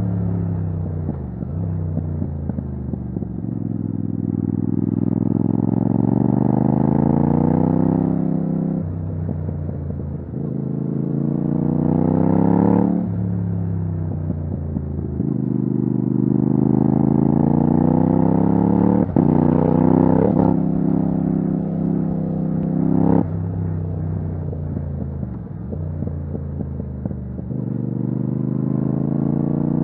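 Yamaha MT-07's parallel-twin engine through a titanium Akrapovic exhaust with no dB killer, accelerating hard in repeated surges. The pitch climbs over several seconds, then drops sharply at each gear change or roll-off, several times over.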